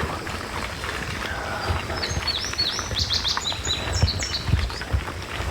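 A songbird singing a quick run of high, downward-slurred chirps from about two seconds in, over a steady low rumbling noise.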